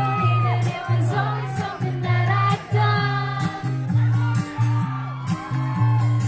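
Live band music: singing over a steady, repeating bass line.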